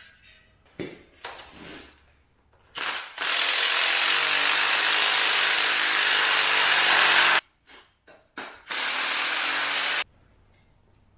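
Cordless power ratchet running down a fastener at the front axle's steering knuckle: a short burst, a steady run of about four seconds, three quick blips, then another run of about a second and a half. A couple of light clicks come first.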